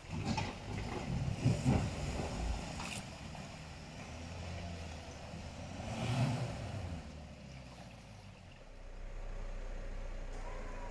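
A four-wheel-drive ute's engine working as it crawls up a rocky, rutted track, rising in loud surges about a second and a half in and again around six seconds in, then settling into a steadier low drone near the end.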